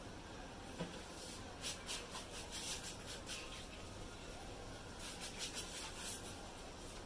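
Faint, quick scratchy rubbing strokes of an ASMR head massage, in two runs of a second or two each.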